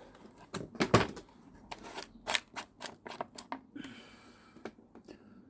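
Scattered clicks and knocks of a petrol strimmer's plastic housing and fuel tank cap being handled as the tank is opened, with a brief scraping rustle about four seconds in.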